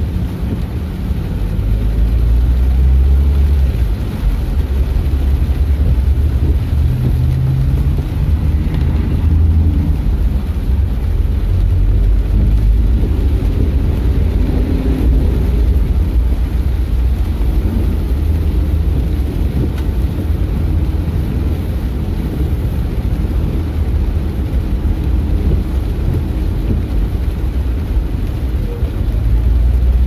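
Car driving on a wet road in rain, heard from inside the cabin: a steady low rumble of engine and tyres, its pitch shifting a little now and then, over a fainter hiss of rain.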